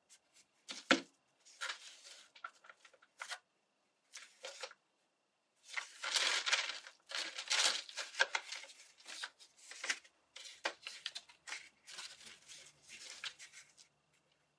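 Paper from old book pages rustling and crinkling in irregular bursts as folded cone-shaped petals are handled and pressed together, with a single sharp knock about a second in.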